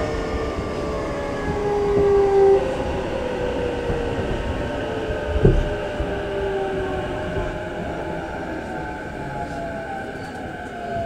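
Inside an E233-5000 series electric train slowing for a station stop. The traction motors' whine falls slowly in pitch over the running noise of the car, with one thump about five and a half seconds in.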